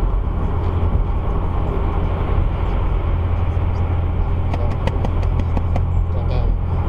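Steady road and engine noise inside a car's cabin at highway speed, dominated by a low drone, with a short run of faint clicks about two-thirds of the way through.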